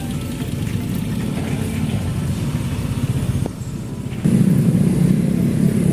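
Motorcycle engine running while riding, easing off about three and a half seconds in and picking up louder again a moment later.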